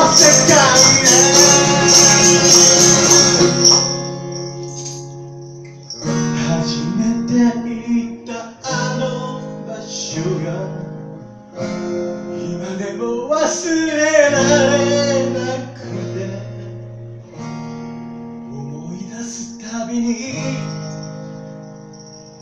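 Acoustic guitar played live. It is a loud strummed passage with a bright, hissy high shimmer for the first few seconds, then softer picked phrases of ringing notes, with a man's singing voice coming in here and there.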